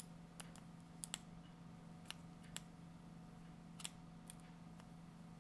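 Screwdriver turning the small screw on a metal laser chain aligner's battery cover: a few faint, irregular clicks of the tip and screw against the housing, over a low steady hum.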